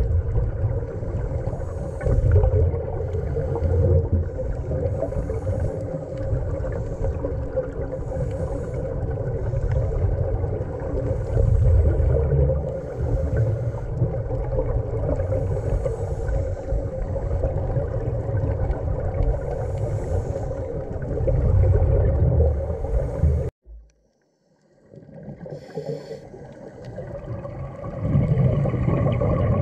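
Underwater sound of scuba divers breathing through their regulators: muffled gurgling rushes of exhaust bubbles every few seconds, over a steady hum. A little over two-thirds of the way in the sound cuts out for about a second, then returns.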